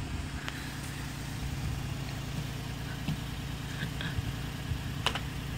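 Car engine idling steadily with a low hum, and a single sharp click near the end.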